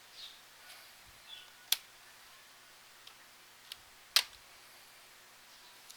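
Sharp plastic clicks and snaps, a few of them with the loudest about four seconds in: the clips of a Lenovo IdeaPad S145 laptop's bottom cover popping loose as it is pried open with a spatula.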